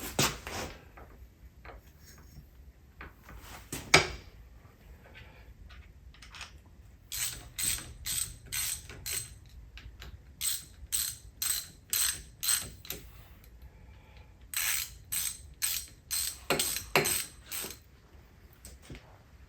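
Hand ratchet wrench clicking through three runs of quick strokes, about three a second, after a couple of single sharp knocks early on.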